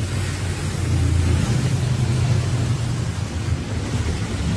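Low, steady outdoor rumble of street traffic, with wind buffeting the microphone.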